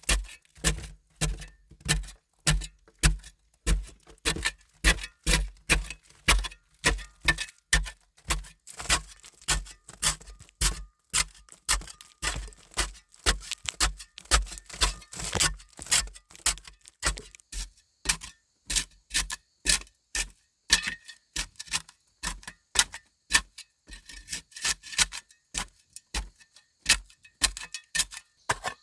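Steady run of hand-tool blows, about two a second, each a sharp strike with a dull thud beneath it, like chopping or hacking.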